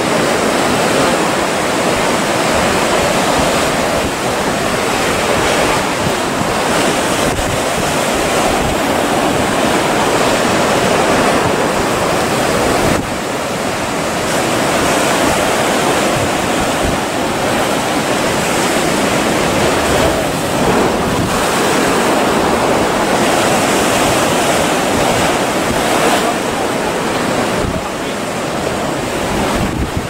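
Ocean surf breaking and rushing steadily in heavy swell, dipping slightly in loudness about halfway through and again near the end.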